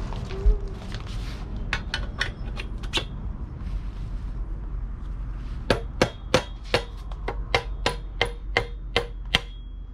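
Sharp metal-on-metal clinks and taps from tools and BMX bike parts during assembly, each with a short ring. First comes a quick cluster of about six, then a steady run of about a dozen, roughly three a second.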